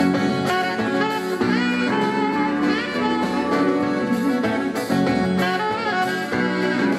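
Rock band playing live: a saxophone carries a melodic solo line, with some sliding notes, over the band's accompaniment with a steady drum beat.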